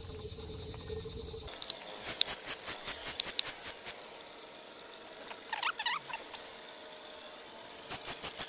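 Fast-forwarded sound of work at a hand-pump oil extractor. A steady low hum gives way to sped-up sound: a quick run of sharp clicks, a brief burst of high squeaky chirps about halfway, and another fast run of clicks near the end as the pump handle is worked.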